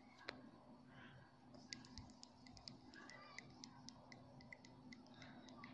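Near silence broken by faint, irregular light clicks, a stylus or fingertip tapping on a tablet's touch screen.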